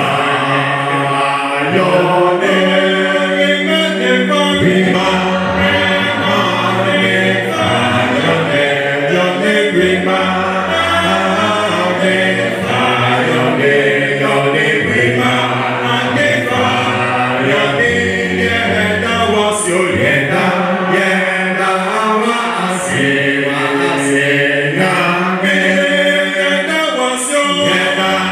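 A cappella group of voices singing in harmony without instruments, held notes moving together in chords.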